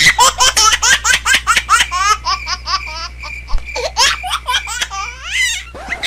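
High-pitched laughter in rapid giggling bursts, several a second, like a baby's laugh, over a steady low hum.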